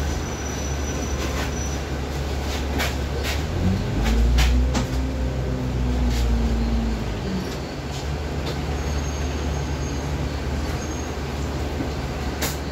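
Inside a moving Solbus SM18 city bus: a steady low drone from its Cummins ISL8.9 diesel engine, which pulls harder and rises in pitch for a few seconds from about four seconds in as the bus accelerates, then settles. Short clicks and rattles come now and then.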